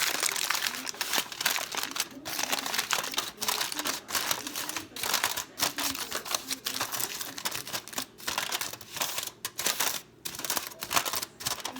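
Busy clicking and rattling, a dense run of short clicks with a few brief pauses, as of small hard things being handled.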